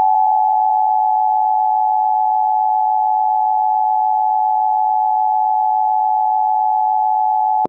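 Emergency Alert System attention signal: a loud, steady two-tone alarm held unchanged for about eight seconds, cutting off abruptly near the end.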